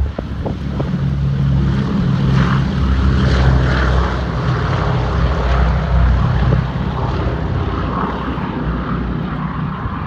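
Boeing B-17 Flying Fortress taking off, its four nine-cylinder Wright Cyclone radial engines running at takeoff power with a deep propeller drone. The sound is loudest a few seconds in as the bomber passes and lifts off, then eases a little as it climbs away.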